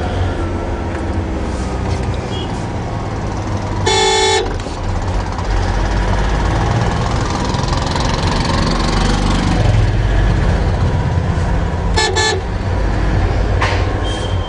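Steady engine and road rumble inside a moving car's cabin in traffic, with a vehicle horn blast about four seconds in and another shorter one near twelve seconds.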